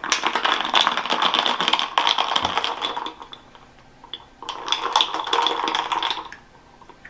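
Metal straw stirring a drink in a glass mason-jar mug, clinking and rattling rapidly against the glass in two bouts, the first about three seconds long, the second starting after a short pause and stopping about six seconds in.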